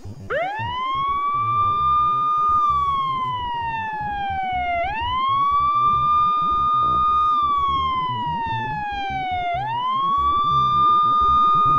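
Siren wailing: the pitch sweeps up quickly, holds for about two seconds, then slides slowly down before sweeping up again, three times.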